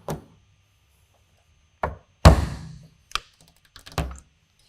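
A few sharp knocks and taps from hard tools being handled during glue-pull dent repair. The loudest comes about two seconds in, with a short rasping tail, and smaller clicks follow near the end.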